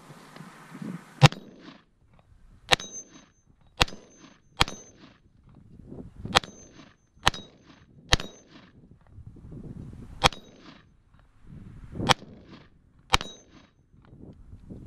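Ten loud single rifle shots from an IWI X95 bullpup, fired one to two seconds apart. Nearly every shot is followed at once by the high, ringing clang of the bullet striking a half-inch AR-500 steel gong.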